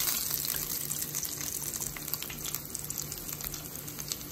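Battered fish fillets deep-frying in hot oil: a steady sizzle with many small crackles and pops.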